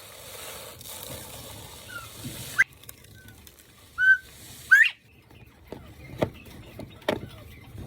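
Quail calling: about half a dozen short, rising whistled chirps, with a few sharp ticks in the second half.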